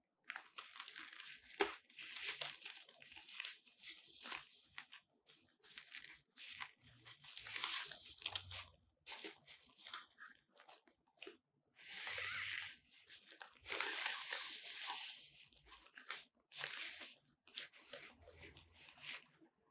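White diffuser cloth of a Godox octagon softbox rustling and crinkling in irregular bursts as gloved hands unfold it and smooth it out flat.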